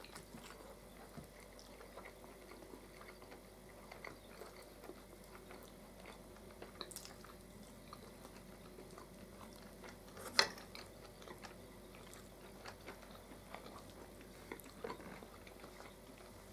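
Quiet eating at a table: soft chewing of baked chicken and small clicks of a fork against a plate, with one sharper click about ten seconds in.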